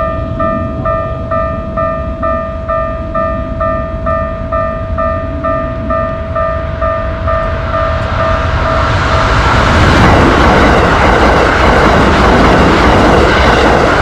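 Japanese railroad crossing bell ringing in an even two-tone ding about twice a second, then a Keikyu train passes from about nine seconds in, the loud rumble of its wheels on the rails drowning out the bell.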